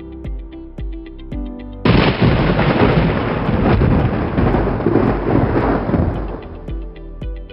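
A thunderclap breaks in suddenly about two seconds in and rumbles for about four seconds, fading out, over background music with a steady beat.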